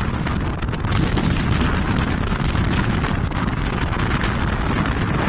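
Hurricane-force wind blowing hard across a phone's microphone: a loud, steady, rumbling rush of wind noise.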